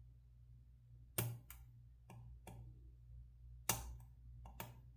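Lock pick and tension wrench working the pins of a Sargent military brass padlock during single-pin picking: scattered sharp clicks at irregular intervals, the loudest about a second in and again a little before the end.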